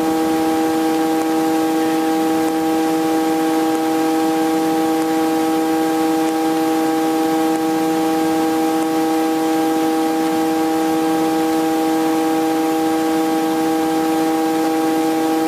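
Steady, unchanging droning tone over hiss, as heard in a helicopter's intercom audio between the pilot's remarks. It cuts in and out abruptly at its ends.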